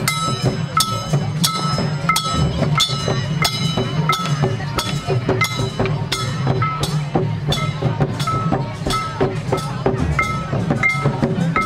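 Procession music led by struck metal percussion: a steady beat of ringing metallic strikes, about three a second, over a continuous low hum.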